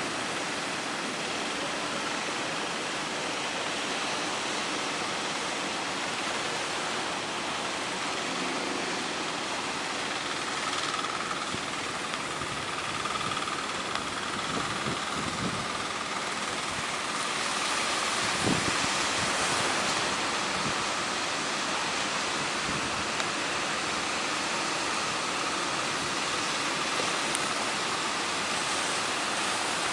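Strong wind and high sea waves, a steady rushing noise that swells slightly a little past the middle.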